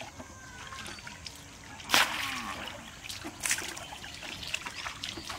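Water being scooped from a shallow canal channel with a small plate and flung out, bailing the channel: a loud splash about two seconds in, another about a second and a half later, with smaller splashes and trickling between.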